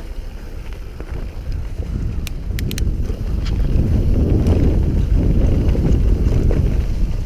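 Wind buffeting the camera microphone and mountain-bike tyres rumbling over a dirt forest trail on a fast descent. A few sharp clicks come about two and a half seconds in, and scattered ticks follow.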